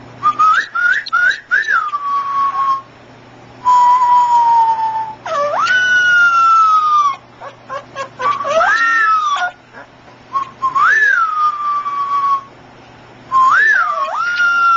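Young puppy giving high, whistle-like howls: about six calls, each sliding up and then falling slowly, with short pauses between.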